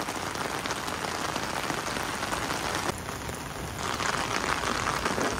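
Heavy rain falling steadily on wet concrete steps and grass, a dense even hiss.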